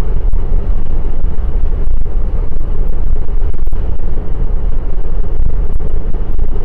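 Traffic moving at speed: a loud, steady low rumble of road, engine and wind noise, heard from a vehicle driving alongside a truck.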